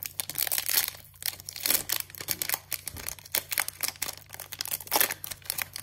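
Foil wrapper of a Pokémon TCG Hidden Fates booster pack being torn open and peeled back by hand, crackling and crinkling in a dense run of sharp rustles.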